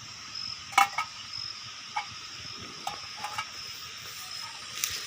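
Steady high chirring of night insects such as crickets, with a few sharp clicks and knocks over it, the loudest about a second in.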